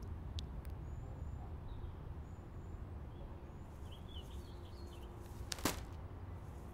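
Outdoor ambience: a steady low rumble with small birds chirping now and then, and a single sharp click about two-thirds of the way in.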